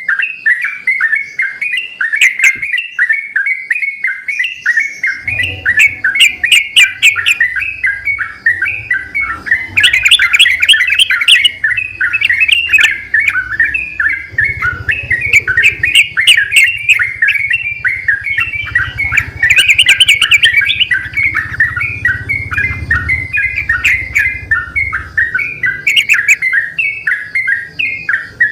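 Yellow-vented bulbuls (trucukan) singing in full voice, several birds answering one another in a continuous run of quick chattering phrases.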